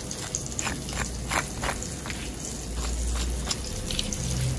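Bombil (Bombay duck) fish frying in hot oil: a steady sizzle with scattered sharp pops and crackles.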